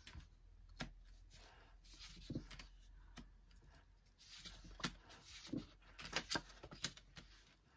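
Tarot cards being drawn from a deck and laid down one by one: a handful of soft card slaps and taps with light rustling of card on card.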